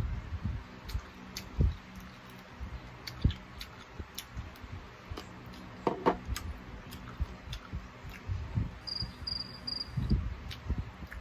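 Close-miked eating sounds of a person chewing and sucking on chicken feet: wet clicks, smacks and soft low thumps, irregular throughout. Near the end come three short high chirps, like a cricket sound effect.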